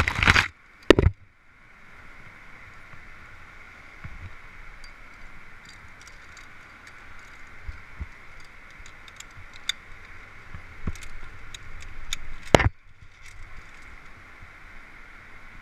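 Via ferrata lanyard carabiners and gloved hands on the steel safety cable, giving scattered light metal clicks and scrapes as the climber moves along. Loud rubbing bumps from leaves brushing the head-mounted camera near the start, and another loud bump on the camera about twelve seconds in.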